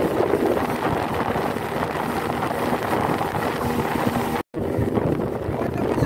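Speedboat's 75-horsepower outboard motor running at cruising speed, with hull spray hissing and wind buffeting the microphone. The sound cuts out for an instant about three-quarters of the way through.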